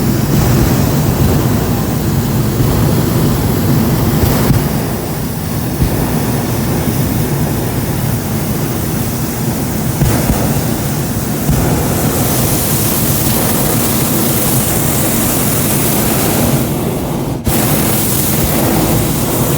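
Hot-air balloon's propane burner firing: a loud, steady rushing roar over a low rumble, with a brief break about seventeen seconds in.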